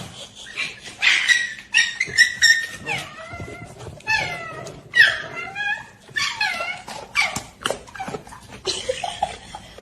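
A dog whining and yipping in a string of short, high cries that bend in pitch.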